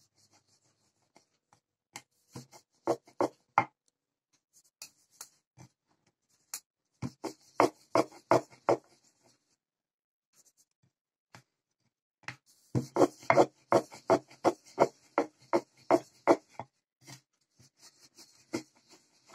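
Wooden rolling pin rolling out a ball of momo dough on a round wooden board: quick back-and-forth strokes of wood rubbing and clacking on wood. They come in three runs, the last and longest starting about two-thirds of the way through.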